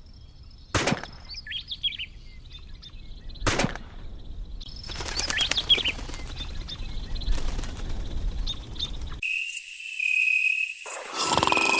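Small birds chirping, with two sharp knocks, about one second and three and a half seconds in. About nine seconds in the sound cuts abruptly to a steady high-pitched tone, and chime-like music begins near the end.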